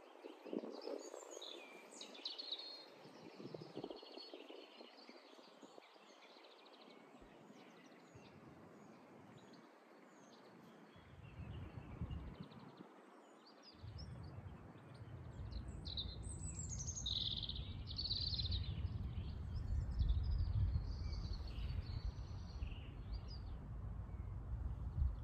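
Songbirds singing and chirping in quick scattered phrases. About halfway through, a low rumble sets in and grows louder than the birdsong.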